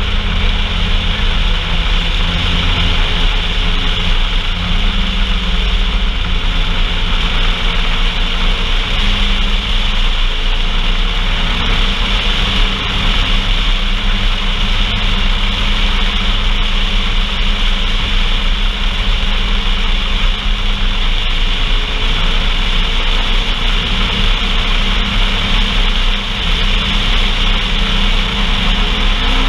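Off-road vehicle engine running steadily, with a constant hiss over it.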